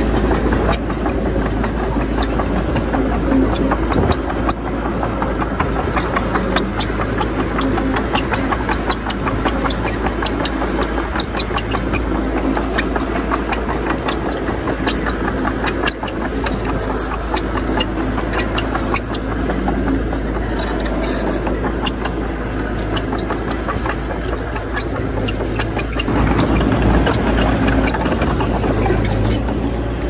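Bulldozer's diesel engine running steadily, with a rapid clatter of small knocks throughout, a little louder near the end.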